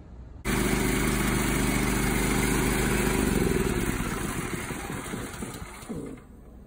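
Kohler engine on an air compressor running steadily, coming in suddenly about half a second in; about three seconds in it is shut off and slows down, its note sinking, until it stops about six seconds in.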